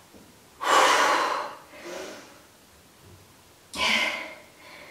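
A woman breathing hard and out of breath from exercise: two loud, heavy exhales about three seconds apart, with a smaller breath between them.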